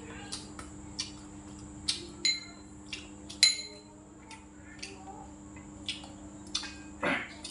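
Spoon clinking against bowls and plates while eating: a run of sharp clinks, some with a short ringing tone, the loudest about three and a half seconds in.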